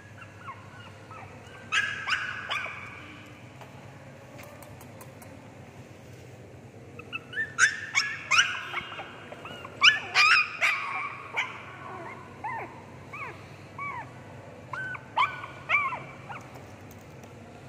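Shih Tzu puppies yipping and whimpering in short, high-pitched calls. The calls come in a brief burst about two seconds in, then a busier run in the middle, with thinner whines near the end.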